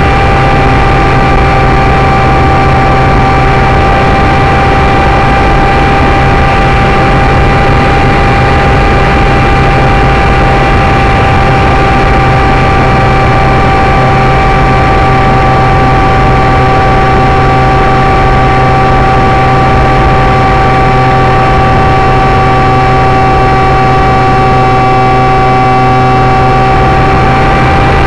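Parkzone Icon RC seaplane's electric motor and propeller heard from the onboard camera: a loud, steady high whine at nearly constant pitch, over heavy wind rush from flight.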